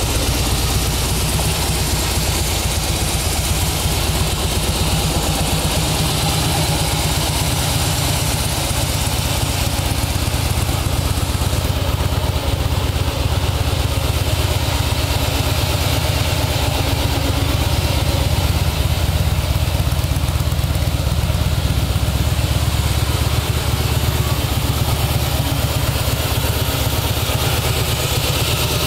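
2008 Harley-Davidson Heritage Softail Classic's 1584 cc air-cooled V-twin idling steadily with a low, even pulse.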